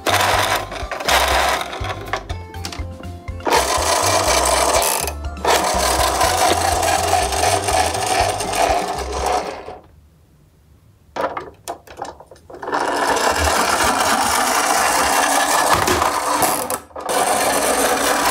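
Toy garbage truck's wheels and gear mechanism whirring and rattling as it is rolled and driven along a wooden ramp, stopping briefly about ten seconds in and then starting again.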